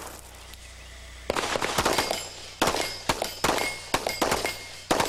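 Handgun fired in a rapid string at steel falling plates, a shot about every half second after a quiet first second or so, several hits followed by a short ring of struck steel.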